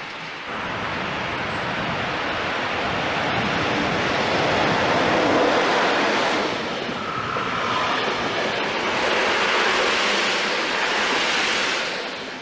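Deutsche Bundesbahn passenger train of grey coaches running past close by, a steady rush of wheel and rail noise that swells about half a second in, stays loud and falls away near the end.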